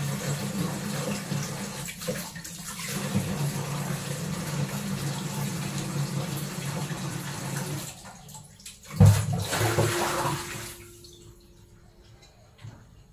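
Kitchen tap running into a stainless steel sink while hands are rinsed under the stream. The flow stops about eight seconds in, and a single loud knock follows about a second later.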